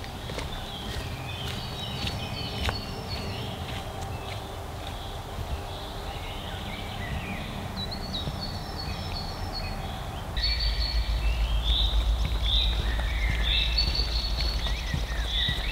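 Several songbirds singing in woodland, many short chirping phrases overlapping. About ten seconds in the sound changes abruptly to louder, repeated bird phrases over a steady low rumble.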